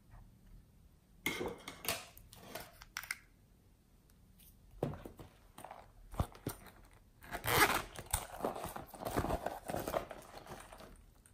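Scissors cutting a shiny orange faux-leather pouch into pieces, with rustling and crinkling as the material is handled, in several short spells that grow busiest in the last few seconds.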